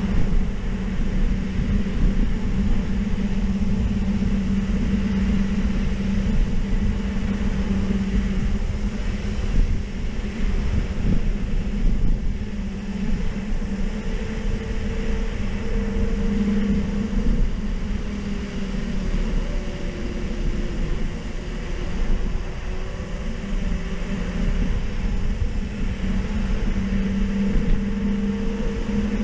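Wind rushing over the microphone and tyre hum from a mountain bike rolling along a paved road. The hum holds steady, with a higher tone that wavers up and down in pitch midway.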